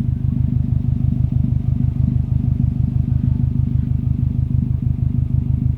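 2008 Subaru STI's turbocharged 2.5-litre flat-four idling steadily through an Invida N1 race exhaust, a low, evenly pulsing exhaust note. It is picked up by a microphone taped to the rear bumper close to the tailpipe.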